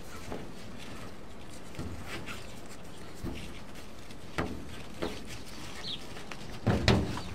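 Tomato plant stems and leaves rustling, with scattered soft clicks and knocks as they are handled and tied up to a roof hanger. There is a faint bird chirp about six seconds in, and a couple of louder knocks near the end.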